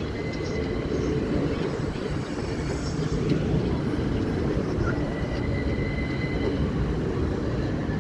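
Class 377 Electrostar electric multiple unit running past the platform: a steady rumble of wheels on rails, with a faint high squeal from the wheels now and then.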